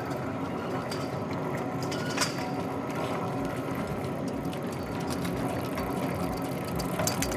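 Downhill mountain bike freewheeling, its rear hub ratchet buzzing steadily as the bike coasts over the dirt track, with a sharp click about two seconds in and another near the end.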